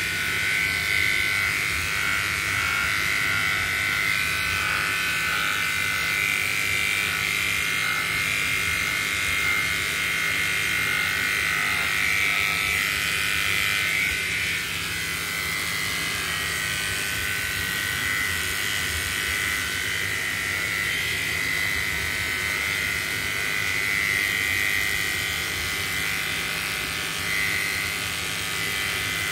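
Oster electric pet clippers running steadily with a high whine while shaving through a dog's coat.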